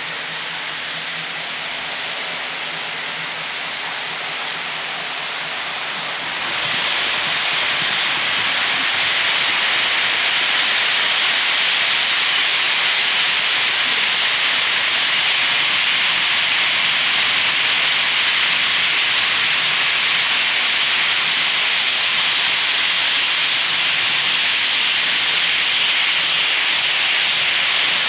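Several Märklin model trains running on their track, a steady metallic hiss of wheels rolling on the rails. It grows louder about six seconds in.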